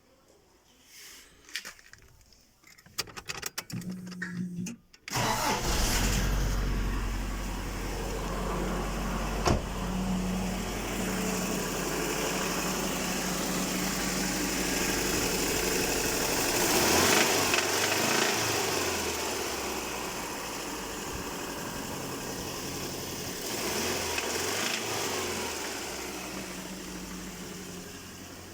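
An engine is cranked and catches about five seconds in, then runs steadily, revved up and back down twice. It is an engine whose owner says it knocks.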